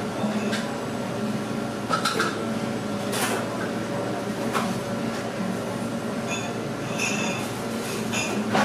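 Restaurant room background: a steady hum of the room with a few sharp clinks and knocks of dishes, and faint voices in the background near the end.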